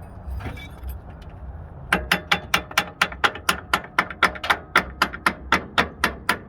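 Metal striking metal in a steady run of sharp taps, about four a second, each with a short ring, starting about two seconds in.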